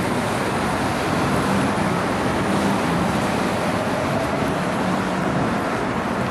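City street traffic: a steady wash of passing vehicles, with a low engine drone coming through twice.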